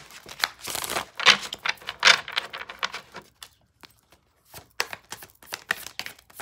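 Deck of tarot cards being shuffled by hand: a few swishing bursts of cards sliding over each other, a pause of about a second midway, then quick card clicks near the end.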